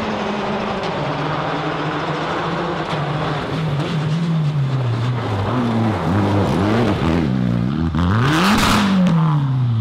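Citroën DS3 rally car's engine at full throttle on a gravel road, with a constant hiss of flung gravel. Its pitch sags, then swings rapidly up and down several times. A short loud rush of noise comes about eight seconds in, as the car crashes and rolls.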